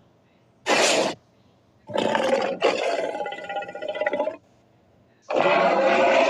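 Synthesised giant-monster roar sound effects: a short hissing burst about a second in, then two roars back to back, the second with a pitched, growling tone, and a long roar starting near the end.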